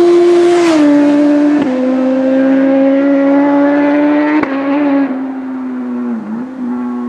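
BMW S1000RR inline-four engine running at high revs through an Austin Racing aftermarket exhaust, a steady raspy note that drops in pitch in two steps within the first two seconds, then holds with small blips and dips before fading toward the end.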